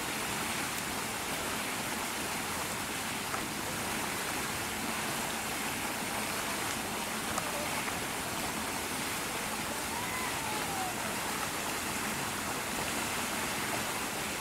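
Steady, even outdoor hiss of the kind made by rain or rushing water. About ten seconds in there is a faint, short whistle that rises then falls, and there are a couple of soft clicks.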